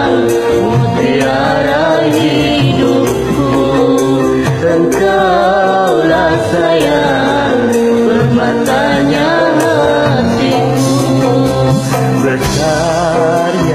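A man and a woman singing a karaoke duet into earphone microphones over a backing track with a steady drum beat; the sung notes waver with vibrato.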